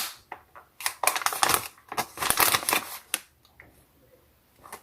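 Crinkling and crackling of a Popcorners chip bag being handled and opened, in quick bursts that stop about three seconds in.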